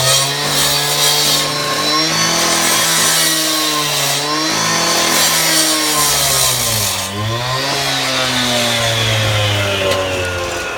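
Power saw cutting into masonry wall, its motor running steadily with a hissing cutting noise; the motor's pitch dips and picks back up about seven seconds in.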